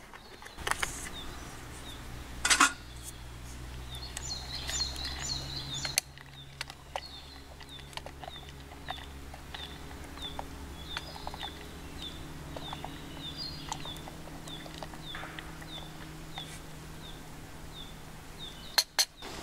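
Wooden spoon and steel cook pot knocking and clinking as milk chai is stirred over a small wood fire, with the loudest knock about two and a half seconds in. A bird repeats a short high call about twice a second through most of it, over a low steady hum.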